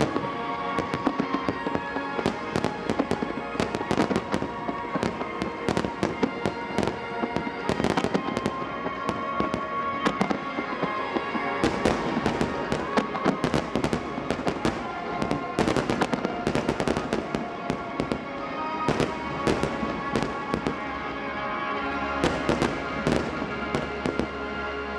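Fireworks shells bursting in a dense, continuous barrage of sharp bangs and crackles, over music played on loudspeakers.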